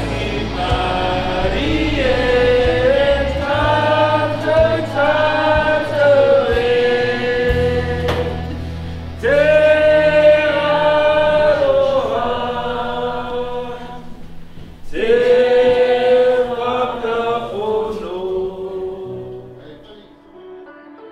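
A group of voices singing a slow song in long, held phrases, choir-like, over low sustained bass notes, fading out near the end.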